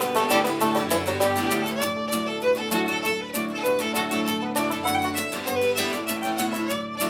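Irish traditional reel played by a small group including a tenor banjo, with a brisk, even run of notes.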